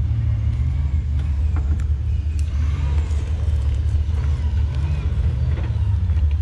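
4x4 competition truck's engine running steadily at low revs: a constant low rumble.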